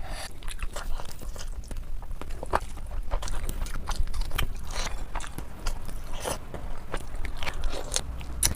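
Close-miked eating sounds: a person chewing and biting food, with irregular wet clicks and small crunches throughout.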